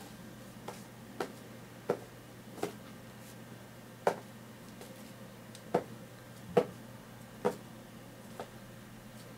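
A series of about nine short, sharp taps and knocks at uneven intervals, the loudest about two-thirds of the way through, over a faint steady low hum.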